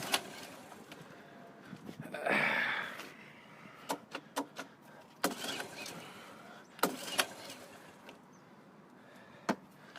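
Scattered clicks and knocks from someone working an old Honda's controls while its engine won't start, with a short rasping noise a couple of seconds in. No engine is running.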